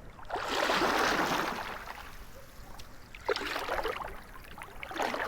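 Kayak paddle strokes in the water: three swishing splashes, the first and longest just after the start, the others about three and a half and five seconds in.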